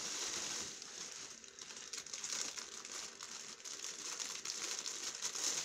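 Clear plastic packaging crinkling as hands work at it to unwrap a plush toy: a steady crackle of many small crackles.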